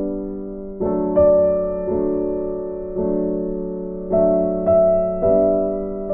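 Background piano music: slow notes and chords, each struck and left to ring out.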